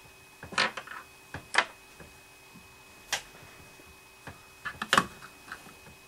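Keys on an Asus VivoBook S400CA laptop keyboard tapped in an irregular run of about a dozen clicks as a password is typed to log in, the loudest about half a second in and near five seconds.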